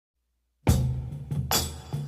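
Background music with a steady drum beat and a low bass line, starting about two-thirds of a second in.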